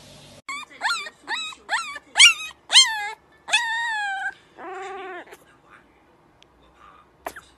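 A young puppy crying in a run of about seven short, high-pitched whimpering yelps, each rising then falling in pitch. A lower, longer cry follows about five seconds in.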